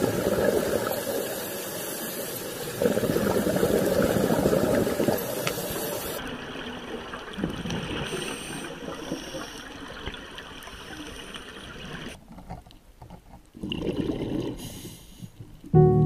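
Rushing, bubbling water in surges of a second or two, loudest in the first five seconds and fainter from about six seconds in, with another surge near the end.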